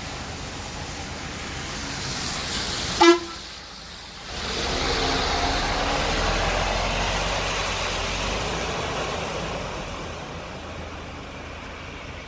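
A vehicle horn gives one short honk about three seconds in. Then a bus drives past through standing floodwater: its low engine rumble and the wash of its tyres through the water rise, then slowly fade.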